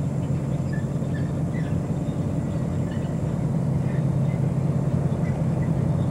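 EMD SW1200 switcher locomotive's 12-cylinder two-stroke diesel engine running in a steady low drone as the locomotive moves slowly along the track.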